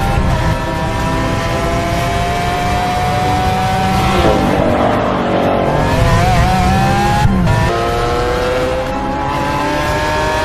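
Lamborghini Aventador Superveloce's V12 engine revving hard under acceleration, its pitch climbing steadily through the gears. The pitch falls away and wavers for a second or two around the middle, then climbs again, with a sharp drop near eight seconds at an upshift.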